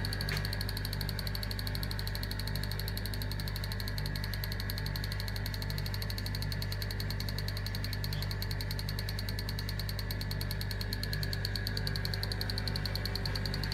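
Steady low electrical hum with a faint high buzz and a slow, regular pulse, from a home-made linear accelerator's running equipment: its vacuum pump, salvaged from an old air conditioner, and its high-voltage supply fed from a bug-zapper transformer.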